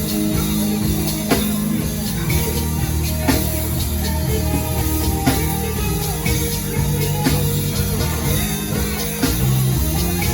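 Live worship band playing: drum kit, bass and guitar under sustained keyboard chords, with heavy drum accents about every two seconds.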